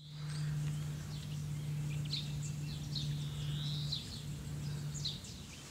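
Small birds chirping and calling over outdoor ambience, with a steady low hum underneath that stops about five seconds in.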